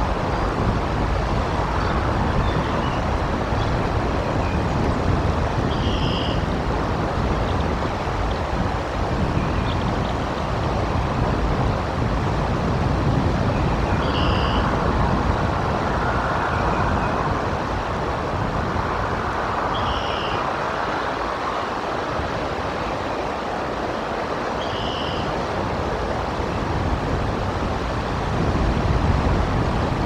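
Steady wind buffeting the outdoor nest-cam microphone, mixed with the hiss of rain and running water. Faint short high chirps recur every five or six seconds.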